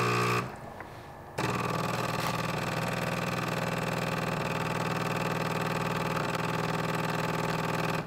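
Jura S8 super-automatic espresso machine's pump humming steadily while brewing a ristretto. It pauses for about a second near the start, then runs evenly and cuts off at the end.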